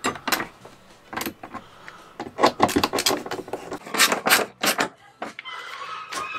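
Small metal clicks, taps and scrapes from a brass porthole trim ring being screwed back onto a wooden cabin wall with a hand screwdriver. The clicks come irregularly and grow thicker and louder about halfway through.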